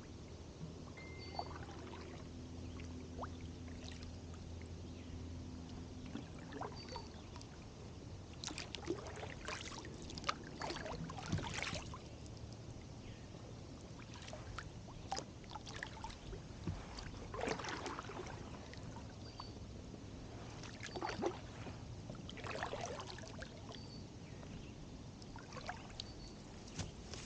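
Kayak paddle strokes dipping and splashing in calm water, with drips off the blades, coming in groups of several strokes with quieter gaps between.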